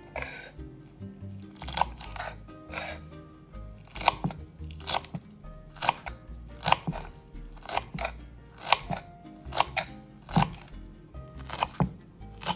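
Vegetables being cut with crisp, crunchy strokes, irregular, about one or two a second, over soft background music.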